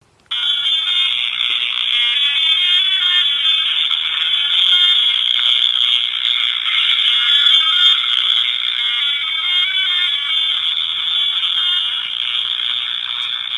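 A dense chorus of frogs calling, many overlapping high calls forming a steady, loud wall of sound that sets in abruptly right at the start.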